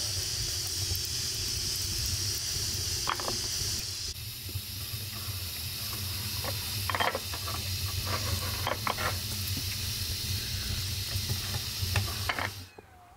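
Food cooking over heat: a steady hiss and sizzle with a low rumble beneath, and a few light clinks of a utensil. The sound cuts off suddenly near the end.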